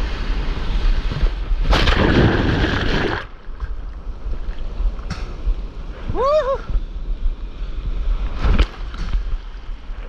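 Broken surf whitewater rushing and splashing around a stand-up paddleboard as it rides the foam, with wind buffeting the microphone. A louder surge of rushing water comes about two seconds in and lasts about a second and a half.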